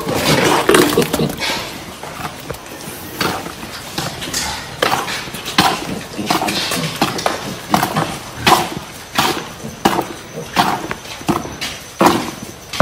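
Weaned piglets moving about on a concrete pen floor, their small hooves making an irregular clatter of sharp clicks and knocks.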